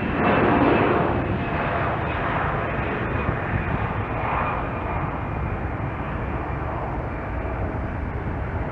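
Jet engines of a landing Boeing 777-300ER, its GE90 turbofans: a steady jet rumble with a thin high whine over it, loudest about half a second in.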